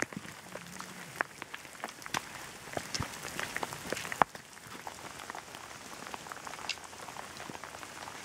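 Steady rain: an even hiss with irregular sharp taps of drops landing close by, one louder tap about four seconds in.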